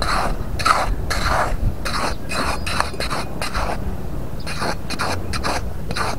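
Metal hand trowel digging and scooping loose beach sand: a quick run of short scraping strokes, two to three a second, with a short pause a little past the middle.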